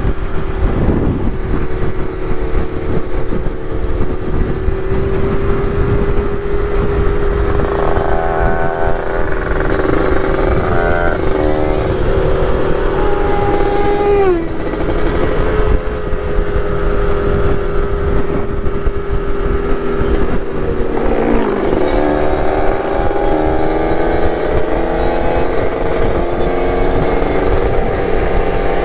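Motorcycle engine running at a steady speed while riding. Its pitch drops briefly about halfway through, then falls and climbs again a few seconds later as the revs change.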